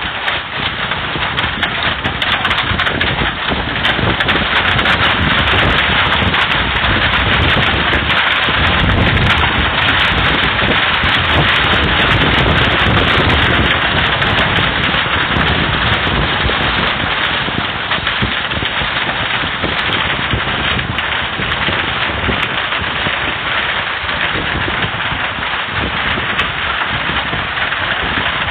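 Heavy rain mixed with hail pouring down, a loud steady hiss. Wind gusts buffet the microphone with a low rumble, strongest about a third of the way in.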